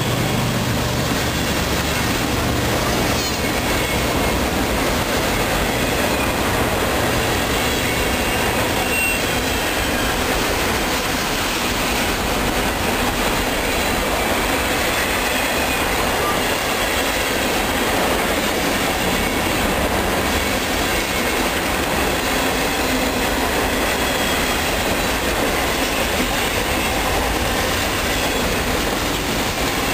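Freight train cars rolling past close by: a steady rumble of steel wheels on rail with clickety-clack over the rail joints and a few faint wheel squeals. The low hum of the locomotives' diesel engines fades out in the first few seconds.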